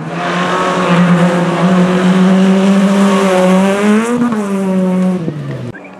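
Rally car engine held at high revs as the car drives past. Its pitch rises slightly, then drops as it passes, about four seconds in. The sound cuts off abruptly near the end.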